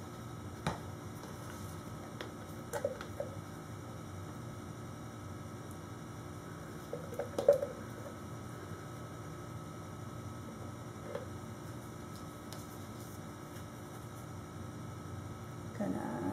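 Steady low hum of room tone, broken by a few brief faint clinks and knocks; the loudest knock comes about seven and a half seconds in.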